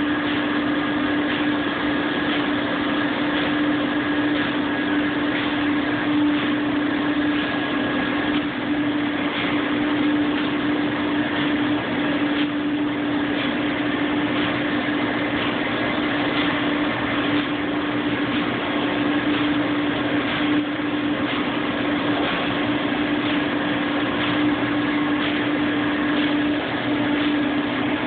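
Alar rotary drum vacuum filter running: a steady machinery hum with one strong low tone and a fainter higher tone over a broad rushing noise.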